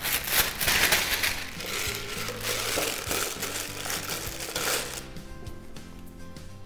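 Disposable plastic piping bag crinkling and rustling as it is opened and folded over the rim of a plastic cup, stopping about five seconds in, over soft background music.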